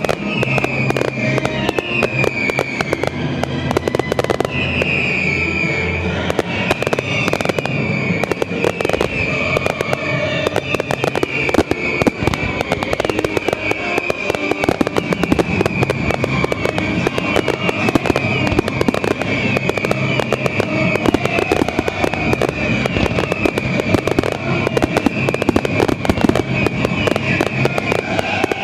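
Fireworks display going off in a dense, continuous barrage of rapid bangs and crackling, with music playing underneath.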